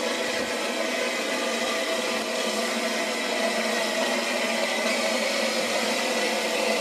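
Steady hiss of steam from a standing Southern Railway S15 class steam locomotive, No. 847, with a few faint fixed tones in it and no change in level.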